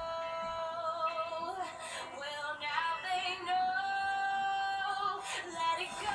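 A female voice singing over backing music, holding long notes in the first second and a half and again from about three and a half to five seconds in.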